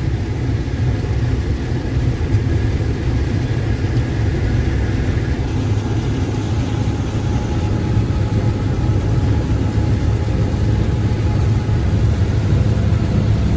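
Combine harvester running steadily while harvesting corn: a constant low engine and machinery drone with faint steady whines above it.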